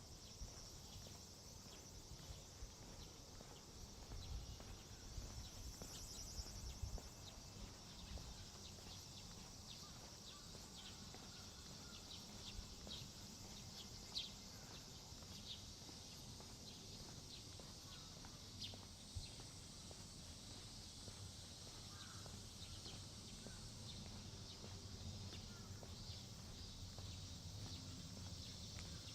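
Faint outdoor ambience: a steady high-pitched chirring of insects, with scattered soft ticks of footsteps.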